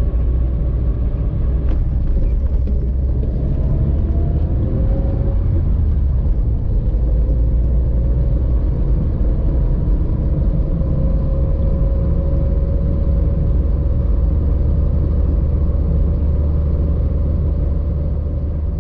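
Car driving: a steady, loud low rumble of road and engine noise with a faint whine that slowly shifts in pitch, fading out near the end.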